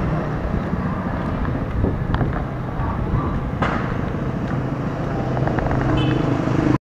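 Street traffic with a motor vehicle engine running steadily, picked up by an action camera's built-in microphone. It cuts off suddenly near the end.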